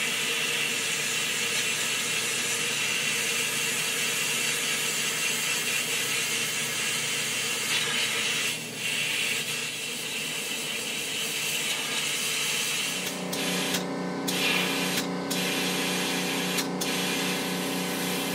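Compressed air hissing steadily from the bead-blast gun of a Cyclone E100 LTC benchtop blast cabinet set at 70 PSI, dipping briefly a few times in the second half. The faulty gun is blowing mostly air and putting out little media. A low steady hum joins about two-thirds of the way in.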